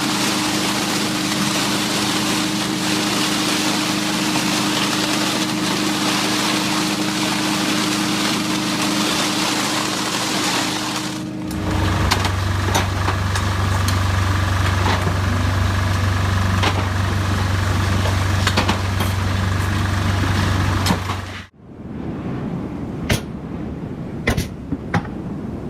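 Heavy construction machinery engines running steadily. About halfway through, the sound changes abruptly to a different machine with a deeper hum. Near the end it drops to a quieter passage with a few sharp knocks.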